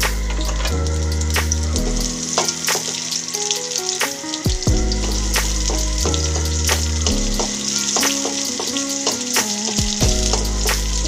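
Chopped garlic and onion sizzling steadily in hot oil in a metal wok, with scattered clicks from a wooden spoon stirring against the pan. Background music with sustained low chords changing every second or two plays underneath.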